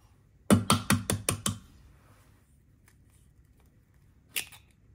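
About six quick knocks in a second, an egg being tapped against the rim of a stainless-steel food processor bowl to crack it. Near the end comes a short crackle as the eggshell is pulled apart.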